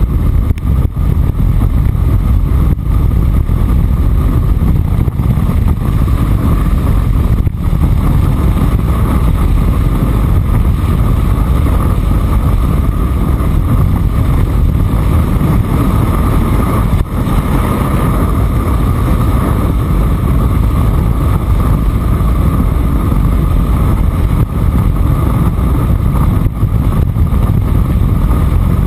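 Steady loud wind rumble buffeting the microphone of a skier's point-of-view camera at speed, over the hiss of skis running on packed snow.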